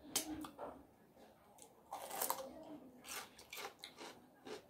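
Close-miked eating sounds: wet lip smacks and chewing, with fingers being sucked clean, in a string of short clicks and smacks.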